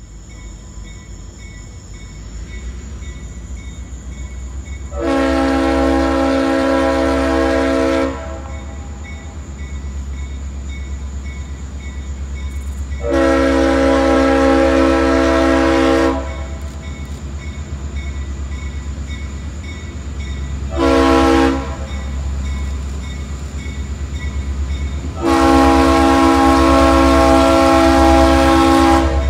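Leslie RS5T five-chime air horn on a CSX diesel locomotive blowing the grade-crossing signal: two long blasts, a short one, then a long one, each a chord of several steady notes. Underneath, the locomotive's low diesel rumble grows louder as it approaches.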